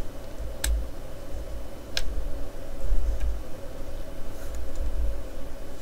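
Plastic model car kit parts being pressed together by hand: two sharp clicks about a second and a half apart, over dull bumps of handling against the tabletop.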